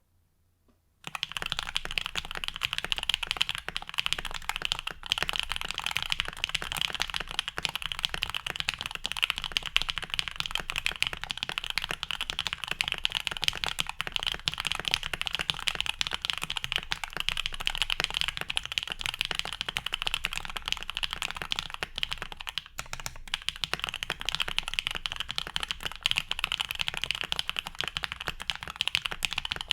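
Fast, continuous typing on a custom 7V mechanical keyboard with lubed and filmed OPblack switches, a polycarbonate plate and PBT keycaps. It starts about a second in, with brief pauses twice.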